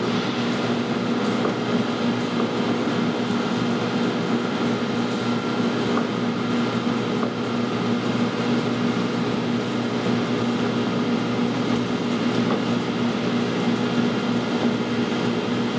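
Steady hum of a running fan motor, with a few fixed tones over an even rushing noise and no change in level.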